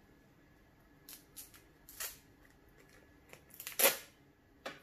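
A small powder sachet being opened and handled: a few short crinkles and rustles, the loudest about four seconds in.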